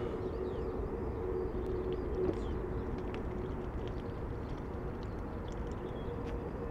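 Outdoor background: a steady low rumble with a faint, continuous two-note hum, and scattered faint ticks and short chirps.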